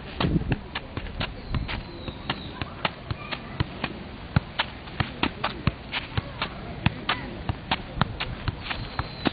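A soccer ball being juggled off the feet: a steady run of sharp taps, about three a second.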